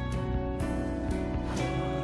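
Instrumental background music with held notes that change about every half second.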